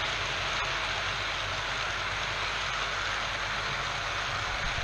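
OO gauge model freight train of yellow bogie wagons running past: a steady rolling rattle of small metal wheels on the track, with a low hum beneath.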